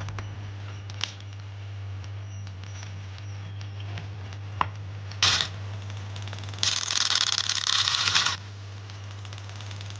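Homemade grinder driven by a CPU fan, grinding against a piece with a scraping noise: a short burst about five seconds in, then a longer one of nearly two seconds. A steady low hum runs underneath.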